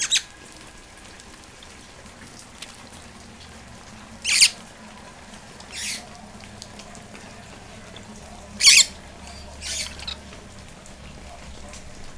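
Green parrot giving five short, harsh squawks at uneven intervals; the loudest come a third and two-thirds of the way through. A steady hiss of rain runs underneath.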